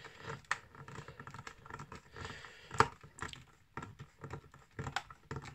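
Small screwdriver turning a screw into a plastic model part: irregular light clicks and scrapes, with one sharper click a little under three seconds in.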